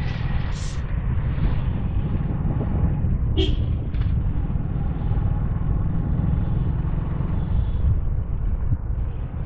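Motorcycle engine running at a steady cruise while riding, heard through heavy wind buffeting on the camera's microphone. A brief high sound cuts through about three and a half seconds in.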